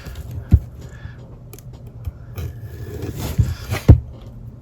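A cardboard trading-card box being handled and opened by hand: scraping and rustling with two sharp knocks, one about half a second in and one near four seconds in.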